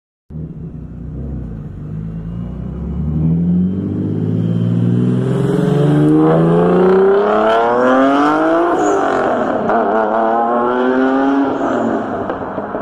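Mitsubishi 3000GT VR-4's single-turbo V6 accelerating hard, its note climbing in pitch, dropping at a gear change about eight and a half seconds in, then climbing again and dropping once more near the end.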